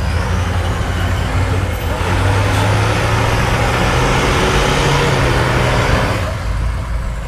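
Hummer H1's engine working hard as the truck climbs a steep rocky hill. It revs up about two seconds in, holds there for a few seconds with a slight rise in pitch, then eases off near the end.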